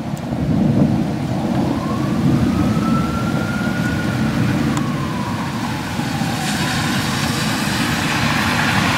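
A distant emergency-vehicle siren makes one slow wail, rising for a few seconds and falling away, over the steady low rumble of a thunderstorm with rain.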